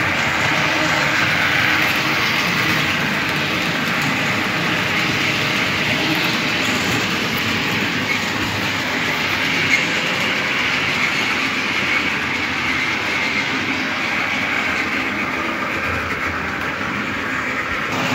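Model trains running on a model railway layout's track, a steady rolling noise with no breaks.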